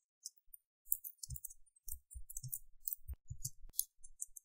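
Faint computer keyboard typing: an uneven run of soft key clicks and thumps.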